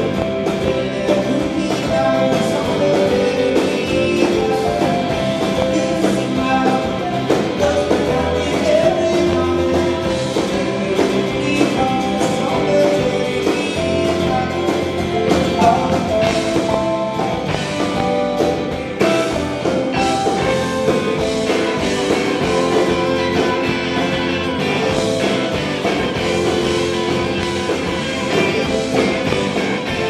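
Live indie rock band playing a song: a man sings over acoustic guitar with the rest of the band.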